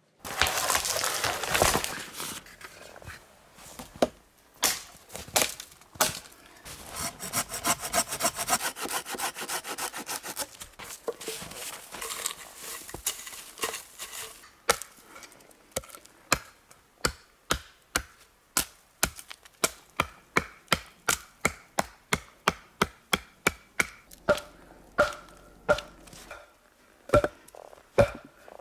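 A hand saw cutting through a small green tree trunk in fast back-and-forth strokes. Later, a wooden baton knocks on wood about twice a second, a long steady series of sharp knocks.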